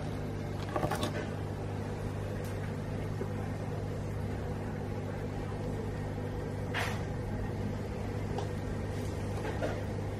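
Steady low electrical hum of an aquarium's pump or filter, with three brief noises about a second in, near seven seconds and near the end.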